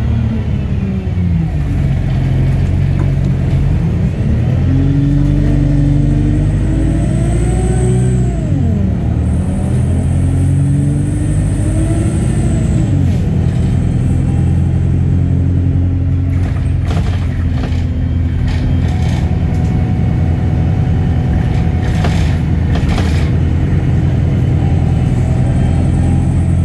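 A bus's diesel engine heard from inside the passenger saloon as the bus accelerates. The engine's pitch rises and drops back twice as it goes up through the gears, then it runs steadily at speed. A few clattering knocks come in the second half.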